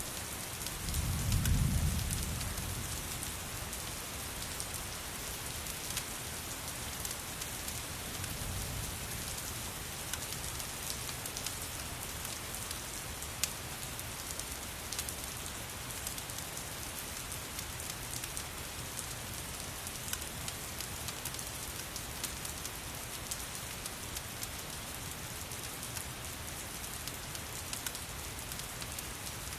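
Steady rain falling, with scattered sharp crackles and a low rumble that swells about a second in and again, fainter, around eight seconds.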